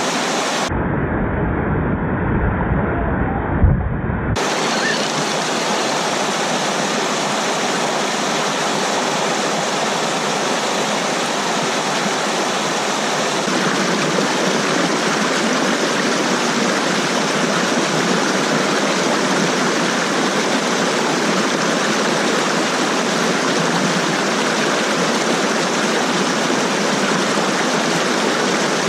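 Steady rush of water tumbling down a small mountain waterfall stream. For a few seconds near the start the sound turns muffled and bass-heavy, with one short knock.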